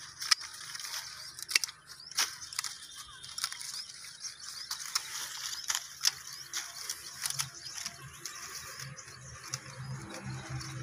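Hand pruning shears (secateurs) snipping through young guava stems: sharp clicks at uneven intervals, about one a second.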